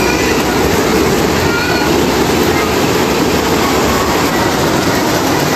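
Model train running along its track, a steady rumble of wheels and motor. Faint voices come through in the first couple of seconds.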